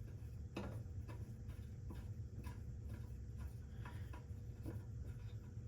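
Faint, irregular small clicks and ticks, roughly two a second, as screws are tightened by hand to join the two halves of a metal TV wall-mount back plate.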